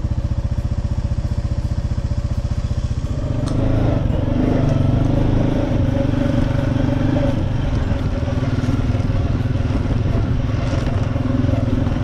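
ATV engine running as the quad is ridden along, with a steady pulsing note that gets louder about three seconds in as it picks up speed.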